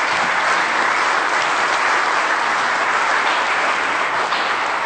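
Audience of many people applauding, a dense, steady clapping at a loud level.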